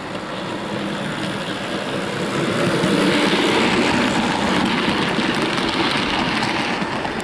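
Model train of tank wagons rolling past close by: a steady rumbling rush of metal wheels on track that grows louder as the wagons pass and fades near the end.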